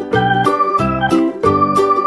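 Background music: keyboard chords changing every half second or so over a steady beat.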